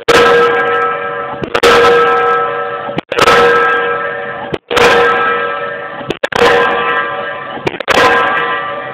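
Diesel pile hammer driving a pile, striking about once every second and a half, six blows in all. Each blow is a sharp bang followed by a metallic ringing that dies away before the next.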